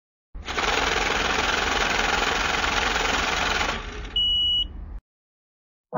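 Intro sound effect under the opening logos: a loud, dense rumbling like a running engine that stops suddenly, followed by a single short high beep.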